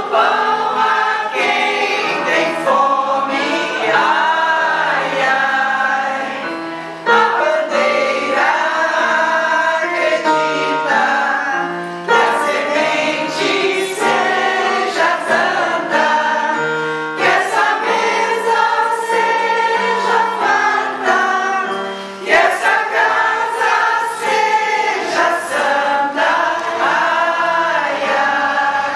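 Amateur choir of mostly women's voices singing together, with electronic keyboard accompaniment. The singing pauses briefly between phrases.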